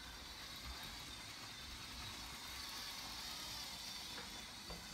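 Lego toy train running on its track, a faint steady whir that grows a little louder in the middle.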